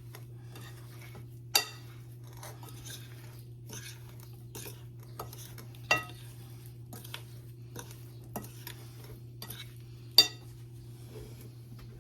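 A spoon stirring and folding sliced fruit in a mixing bowl: soft scraping with frequent light clinks, and three louder ringing knocks of the utensil against the bowl, about four seconds apart. A steady low hum runs underneath.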